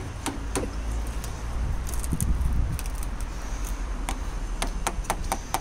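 Scattered sharp clicks and small metallic clinks of hand tools and trim being handled at the edge of a car windscreen, bunched around two seconds in and again near the end, over a steady low rumble.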